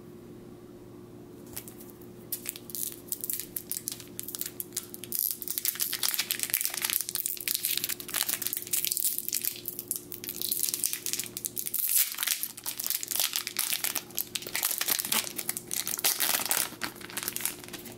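Foil wrapper of a Pokémon Expedition booster pack crinkling and tearing as it is pulled open by hand: a dense run of crackles that starts about two seconds in and goes on until near the end.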